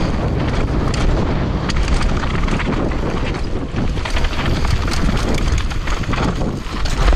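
A downhill mountain bike descends a rough, rocky trail at speed. Wind rushes over the action-camera microphone while the tyres crunch over rock and the bike rattles, with many quick sharp knocks and a heavier jolt at the very end.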